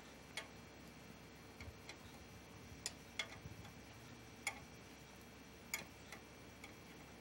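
About eight faint, sharp metallic clicks, unevenly spaced, as a hand wrench is worked on the bolt of an exhaust hanger bracket.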